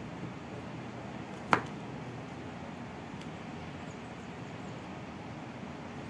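A kitchen knife knocking once, sharply, on a wooden cutting board while cutting zucchini, about a second and a half in, with a second knock at the very end, over a steady low hiss.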